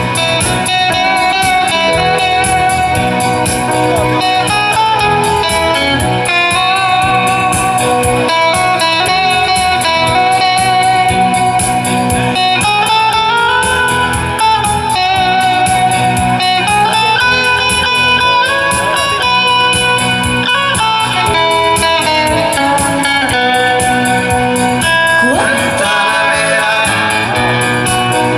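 Live band music: an electric guitar plays a melodic lead over keyboards and a steady drum beat.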